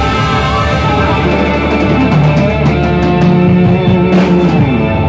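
Live rock band playing loudly: electric guitar and bass holding long sustained notes over the drums, with a sharp drum hit about four seconds in.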